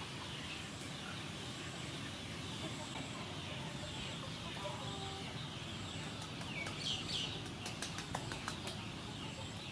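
Hands rubbing coarse salt into the skin of a boiled pork belly slab, with light scratchy clicks near the end, over a steady outdoor background hiss. A bird gives a couple of short calls about seven seconds in.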